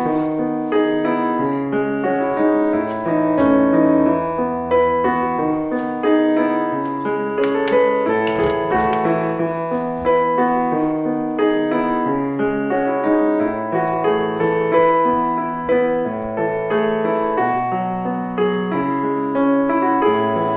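Background music: piano playing a flowing melody with chords.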